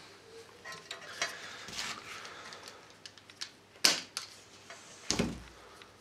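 Handling noise of electrical wire being worked with pliers: light clicks and rustling, a sharp snip about four seconds in, and a dull knock about a second later.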